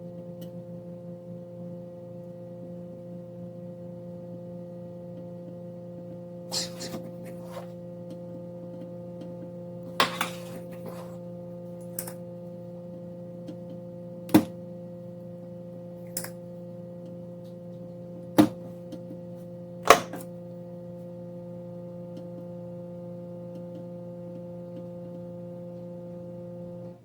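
A steady electrical hum runs under scattered sharp clicks and taps of soldering tools against the circuit board, about seven in all. The hum cuts off suddenly at the end.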